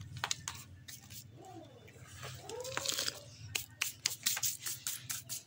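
Crinkling, rustling handling noise with many sharp clicks, as bags of home-made potting-soil mix are handled. A couple of faint, short pitched sounds that glide up and down come in the middle.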